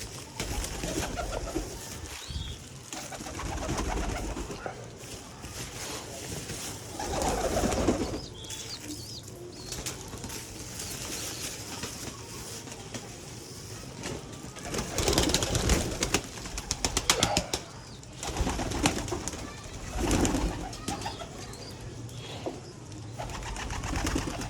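Feral pigeons cooing, with several louder bursts of noise; the loudest, around the middle, is a run of quick repeated strokes.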